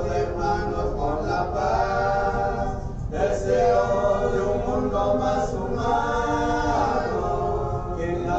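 An unaccompanied choir singing liturgical chant in long held phrases, with a short break about three seconds in.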